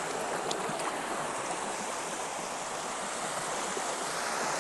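Small creek's water running with a steady rushing sound.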